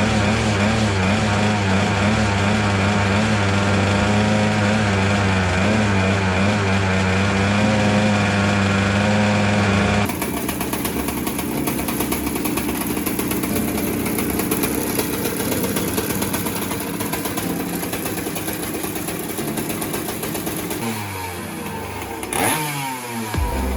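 Small two-stroke go-kart engine running, a steady buzzing tone for about ten seconds. It then changes abruptly to a rougher, noisier engine sound that carries on to the end.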